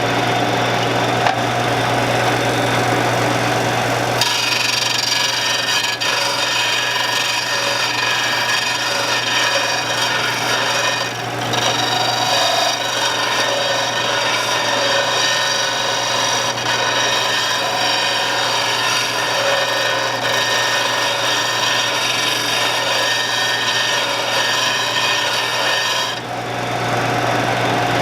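A Shopsmith running steadily while a large lathe gouge is ground in a sharpening guide, bringing the new bevel angle toward the tip. About four seconds in, a loud high grinding hiss starts as the steel meets the abrasive. It eases briefly about eleven seconds in and stops a couple of seconds before the end, leaving the motor running on its own.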